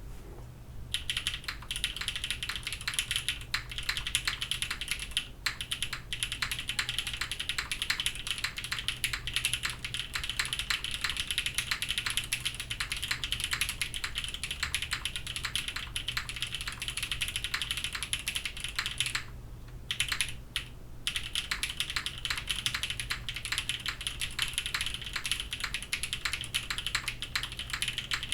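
Krush65 mechanical keyboard, O-ring mounted with a POM plate and Milky Raccoon switches, being typed on quickly and continuously. There is a brief pause about two-thirds of the way through.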